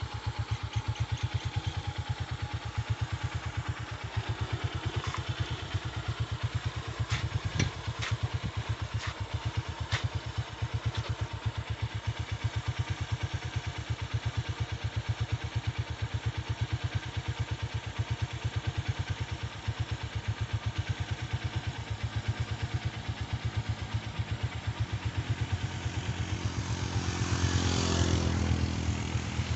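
Motorcycle engine idling with a steady, fast, even putter. There are a few sharp clicks about seven to ten seconds in, and near the end an engine sound swells and fades, its pitch rising and falling.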